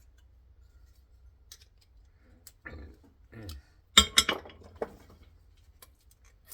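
Small metal pieces and tools clinking against each other on a work surface, with a quick run of loud clinks about four seconds in.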